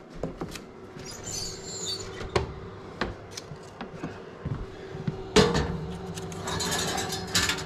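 Oven handling: a few light knocks, then a sharp clunk about five seconds in, followed by a metal baking tray scraping as it slides onto the oven rack. A steady faint hum runs underneath.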